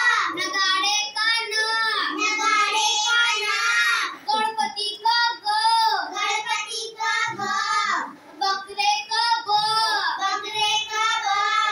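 A girl singing a song, one high child's voice going phrase after phrase with short breaths between.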